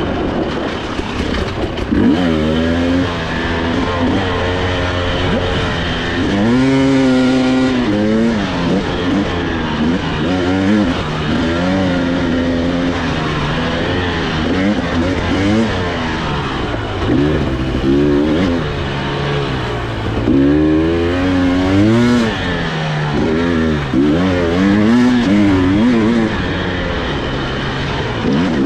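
Two-stroke Husqvarna TE300i dirt bike engine being ridden on a trail, revving up and down over and over, its pitch rising and falling with the throttle and gear changes.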